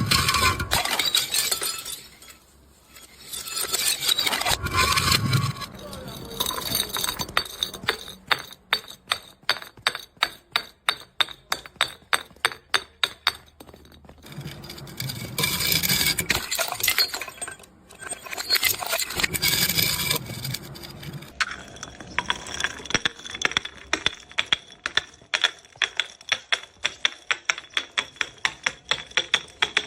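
Glass bottles smashing: several loud bursts of shattering glass, between them long runs of rapid sharp clinks as bottles and broken glass bounce and tumble down hard steps.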